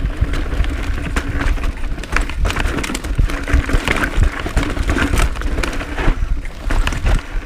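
Cannondale Claymore full-suspension mountain bike riding over rocks and roots, heard from a chest-mounted camera: a steady low rumble with frequent irregular rattles and knocks from the bike.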